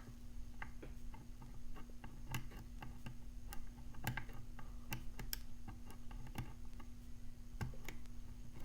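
Faint, irregular small metallic clicks and ticks of a pick and tensioner working inside a Brady Safekey padlock, over a steady low hum.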